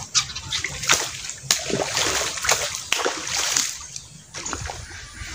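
A hooked fish thrashing at the surface of a pond, a run of irregular loud splashes that dies down after about four seconds.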